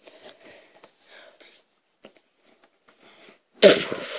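A child's mouthed explosion sound effect: after a few faint small sounds, a sudden loud, hissing burst about three and a half seconds in that trails off over about a second.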